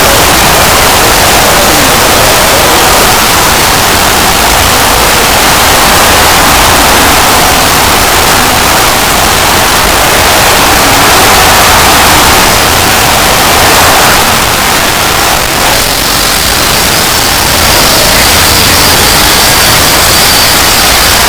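Very loud, harsh static noise from a heavily distorted logo sound effect, filling every pitch from low rumble to high hiss and holding steady. It dips for a moment about three-quarters of the way through, after which a faint high steady tone sits in the noise.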